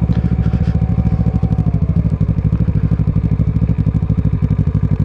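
Kawasaki ER-6n parallel-twin engine through a Scorpion exhaust, running at low, steady revs as the bike is ridden slowly over a rough track, with an even pulsing beat.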